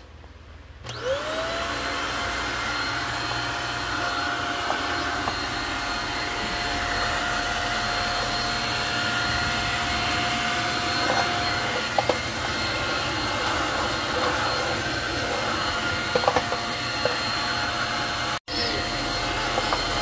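Simplus stick vacuum cleaner switching on about a second in, its motor whine rising quickly in pitch and settling into a steady high hum with a rush of suction air. It runs on as the floor head is worked along a tiled floor edge, with a few short clicks.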